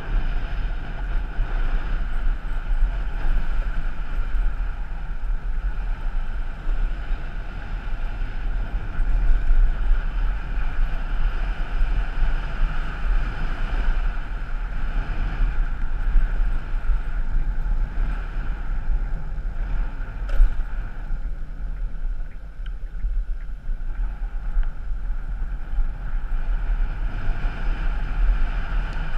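Steady wind buffeting on the microphone over the running noise of a vehicle on the move, with one sharp click about two-thirds of the way through.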